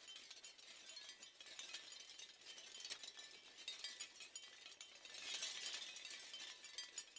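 Seashell wind chimes clinking and rattling against each other in a steady dense tinkle of many small light clicks, swelling louder about five seconds in.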